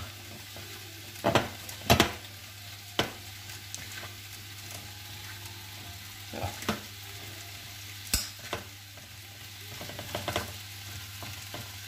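Sliced peppers, mushrooms, onions and spinach sizzling in oil in a frying pan, a steady hiss. Over it come several sharp knocks from a hand working flour and water into dough in a plastic mixing bowl, loudest in the first couple of seconds.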